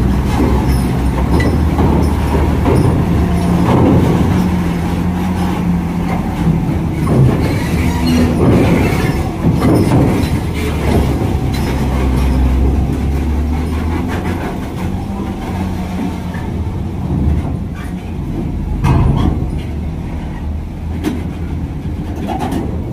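Heavy trailer trucks' diesel engines running at low revs while boarding a ferry, with repeated metallic clanks and rattles as the wheels cross the steel loading ramp. The noise is louder in the first half.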